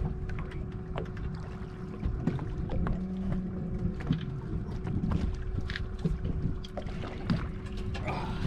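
Boat ambience at sea: a steady low rumble of wind and water with a constant hum, and scattered small clicks and knocks as a fish is reeled up and lifted aboard.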